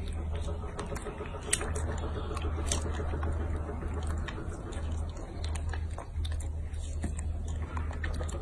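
Baby monkey biting and chewing a strawberry: scattered wet clicks and smacks over a steady low hum.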